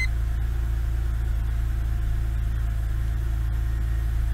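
BMW N52 inline-six engine idling steadily in Park, heard from inside the cabin. It is running on freshly fitted spark plugs and ignition coils.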